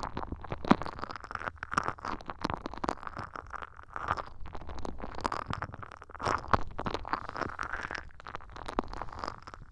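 Fast scratching and tapping right on an ASMR microphone: a dense stream of crisp clicks and rustling scrapes with no pauses.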